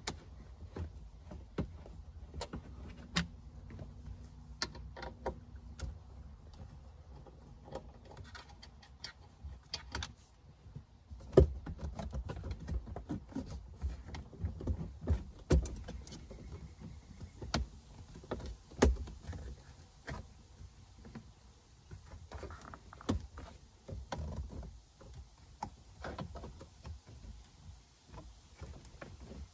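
Scattered clicks, taps and rattles of plastic and metal parts being handled behind the glove box of a 2006 Subaru Outback, as a bracket is loosened and the cabin air filter housing is wiggled free. The knocks come thickest in the middle, with the sharpest one about eleven seconds in.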